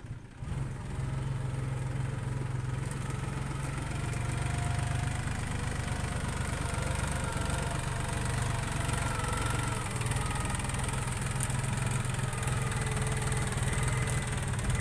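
Diesel engine of a blue New Holland farm tractor running steadily at low revs as the tractor drives through the field, coming up sharply about half a second in.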